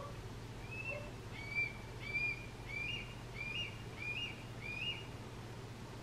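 Juvenile red-tailed hawk's begging cries for its parents: a run of about seven short, high, hooked cries, starting about a second in and repeating roughly every two-thirds of a second.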